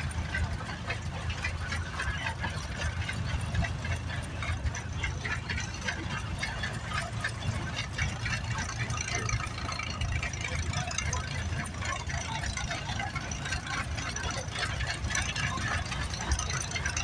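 Wind rumbling on the microphone, with old tractor engines running in the background.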